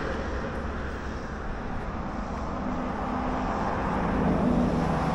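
Motor-vehicle noise in the background: a steady low engine hum over rushing road noise, swelling slightly about four seconds in.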